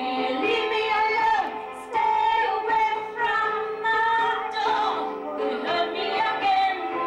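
A woman singing a slow ballad into a handheld microphone, with long held and sliding notes, over steady backing music.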